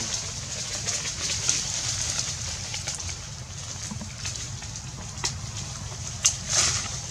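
Outdoor ambience: a steady low rumble with a faint high hiss, and a few short crackles of dry leaves being rustled, the loudest near the end.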